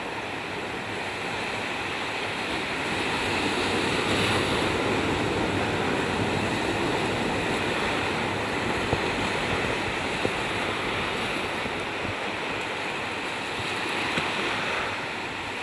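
Surf washing onto a beach: a steady rush of waves that swells and eases.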